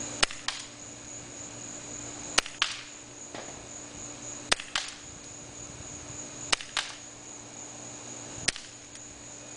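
Smith & Wesson M&P 40 airsoft pistol fired five times, one shot about every two seconds. Each sharp shot is followed about a quarter second later by a fainter click.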